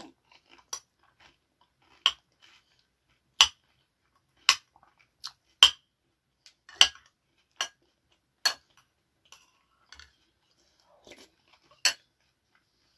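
Metal spoon clinking against a ceramic soup bowl while spooning up borscht: about nine sharp clinks roughly a second apart, with a longer gap before the last one.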